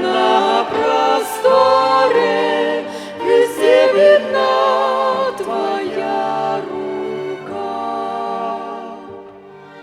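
Hymn sung by a church ensemble with violin accompaniment, ending on long sustained notes that fade away near the end.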